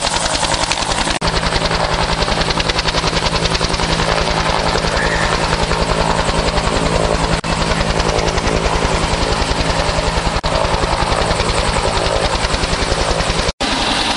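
Rescue helicopter hovering close overhead, its main rotor beating in a rapid, even pulse with the engine's steady drone underneath. The sound cuts out for an instant near the end.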